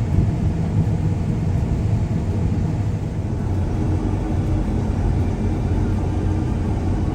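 Combine harvester running steadily during wheat harvest: a continuous low machine drone with a steady engine hum, a faint higher tone joining about halfway through.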